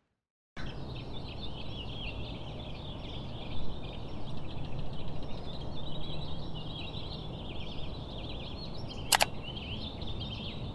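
A chorus of many small birds chirping and twittering continuously, over a steady low rumble. One sharp click sounds near the end.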